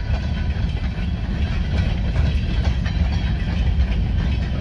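A freight train of covered hopper cars rolling past: a steady low rumble of steel wheels on the rails, with faint scattered clicks.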